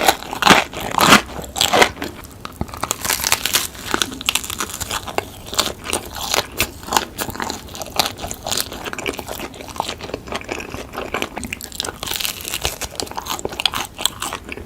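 Close-miked eating of deep dish pizza: bites into crisp crust followed by steady crunchy chewing, loudest in the first two seconds.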